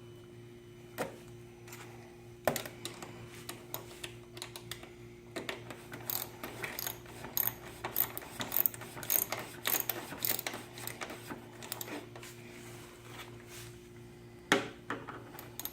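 Socket ratchet clicking in quick runs as a 10 mm bolt is put back and tightened, with a few separate knocks of tools against metal. A steady low hum runs underneath.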